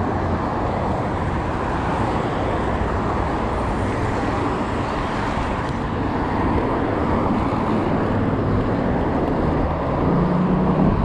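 Steady wind and road noise from riding a road bike along a road with traffic. A low hum comes in near the end.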